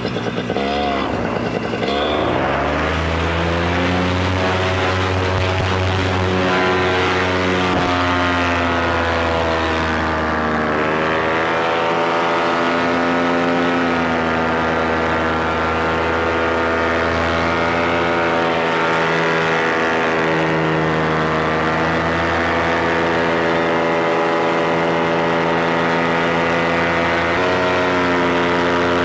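Moster 185 two-stroke paramotor engine and propeller revving up to full throttle for a takeoff, the pitch rising over the first two seconds. It then runs hard through the climb-out, its pitch dipping and recovering slightly a few times as the throttle is eased and reapplied.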